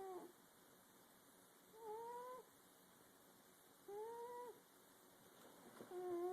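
A sleeping pet snoring quietly: a short pitched, slightly rising note with each breath, about every two seconds.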